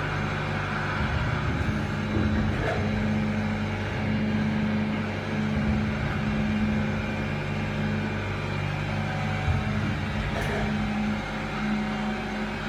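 CNC sharpening machine for carbide-tipped circular saw blades running with a steady hum.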